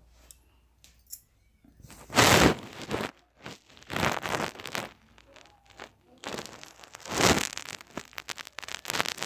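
Metal spatula scraping across a steel kadai as chopped vegetables are stir-fried: three main scraping strokes, the first the loudest, with lighter clicks and taps of the spatula between them.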